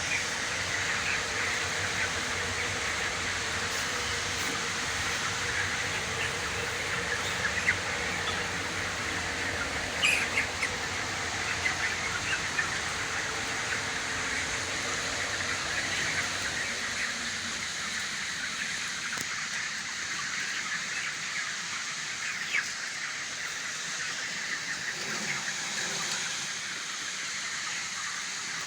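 A large flock of broiler chickens, about 26 days old, cheeping and calling all together in a continuous dense chatter.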